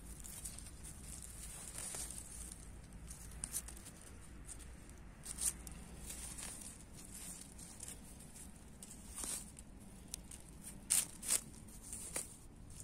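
Leafy wild greens being handled and plucked, making scattered rustling with a few sharp tearing snaps.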